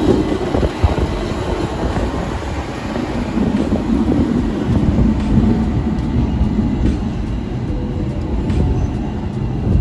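Hong Kong double-decker tram running, heard from on board: a steady low rumble and rattle of the car on its rails, with a few sharp clicks now and then.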